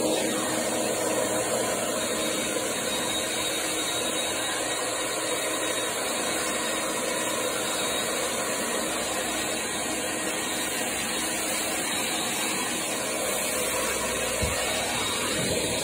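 Heavy-duty wet/dry vacuum running steadily, a continuous motor and airflow noise, while it picks up floor-stripper slurry from vinyl tile.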